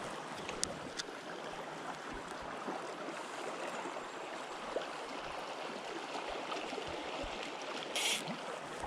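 Steady rush of a fast-flowing river, with a few faint clicks early and a short hiss about eight seconds in.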